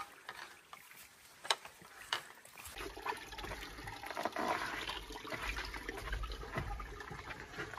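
Footsteps of people carrying a canoe overhead over a rocky portage trail. First come a few sharp steps on rock, then from about three seconds in a steady rushing noise with a low rumble under the continuing steps.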